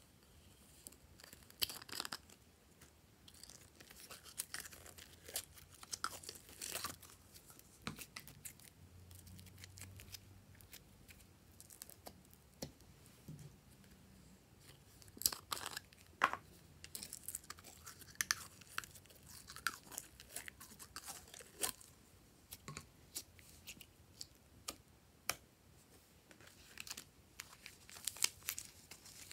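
Hands handling slime in silicone cupcake molds and squeezing sealed plastic bags of soft clay, giving irregular sharp clicks and crackles.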